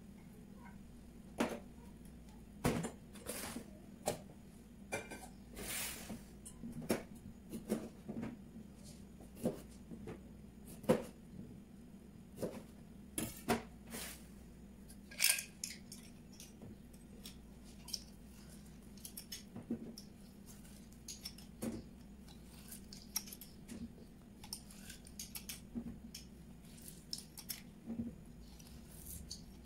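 Kitchen utensils handled on a stainless steel counter: irregular clinks and knocks as metal bowls, a hand strainer and a metal lime squeezer are moved and set down on a stone molcajete, with limes being cut and squeezed near the end.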